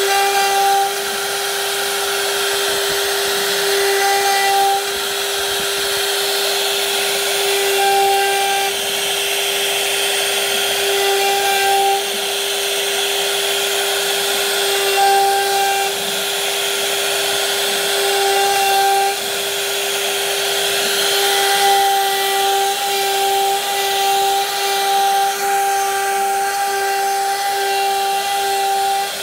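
CNC router spindle running with a steady high whine as its bit cuts a knot pattern into hardwood, with a rough cutting hiss from the wood. A brighter overtone swells every three to four seconds, then holds almost continuously over the last several seconds.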